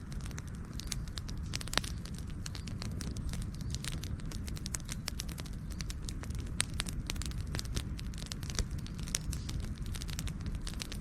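Campfire burning with dense, irregular crackling and sharp pops over a steady low rumble of the flames.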